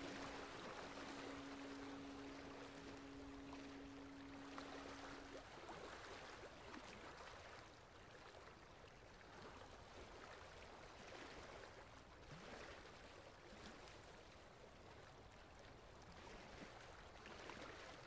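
Faint sound of running water, like a stream. The closing music's last held note ends about five seconds in.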